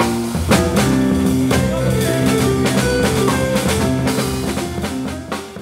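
A small band playing instrumental music: electric keyboard chords and notes over a drum kit, with a bass line. The music dies away near the end.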